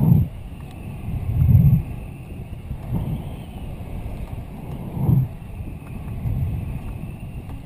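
Wind buffeting the microphone of a high-altitude balloon payload's camera as the payload falls after the balloon's burst: a low rumble that swells in irregular gusts every second or two.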